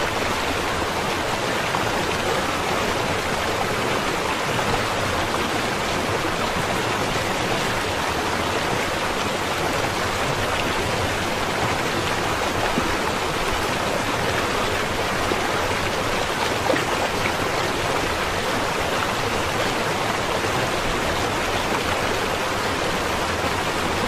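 Shallow river running over a stony bed: a steady, even rush of flowing water.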